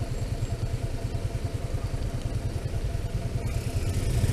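Wind buffeting the microphone of a rider on a Bee U1 electric scooter moving through traffic, a fluttering low rumble with road noise underneath.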